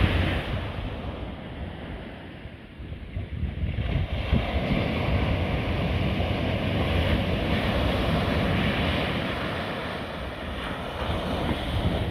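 Pacific surf breaking and washing up a sandy beach, a steady rushing wash. It dips into a quieter lull about two to three seconds in, then swells again as the next waves come in.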